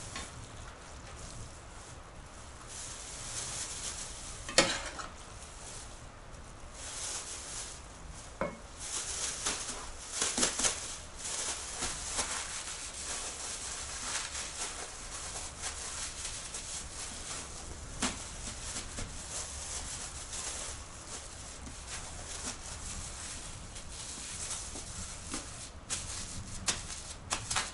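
Thin plastic food bags crinkling and rustling in bursts as they are filled with stewed cabbage, squeezed and pressed flat, with a few sharp knocks, the first about five seconds in.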